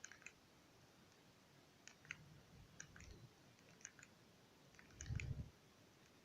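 Faint clicks of a Nokia 3100 mobile phone's keypad buttons being pressed, about a dozen spread irregularly, with a couple of soft low thuds of the handset being handled.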